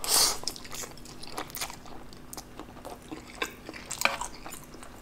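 A mouthful of instant black bean noodles slurped in off chopsticks right at the start, then soft wet chewing with small scattered mouth clicks.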